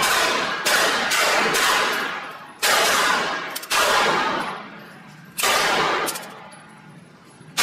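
.22 LR semi-automatic pistol firing 40-grain rounds, about five shots spaced roughly one to two seconds apart. Each crack trails off in a long echo off the concrete of the range.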